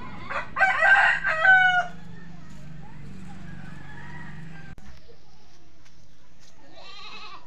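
A rooster crowing once, about half a second in, lasting about a second and a half and ending on a drawn-out held note.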